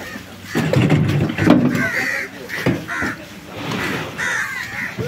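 Crows cawing several times over the general bustle of an open fish market.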